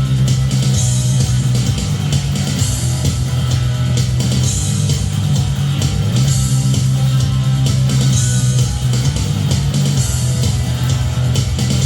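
Rock music: a Jet JS400 electric guitar played through a Laney HCM15R combo amp with Behringer effects pedals, over a backing track with bass and drums.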